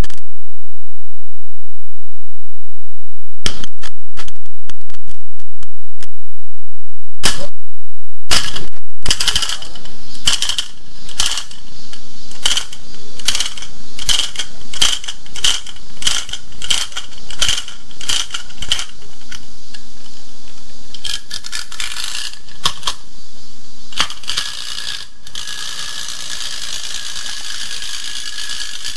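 Tinplate clockwork ladybird toy being wound with its key: a ratchet click about every half second as the spring is tightened. Near the end the released clockwork motor runs with a steady mechanical whir as the toy drives across the table.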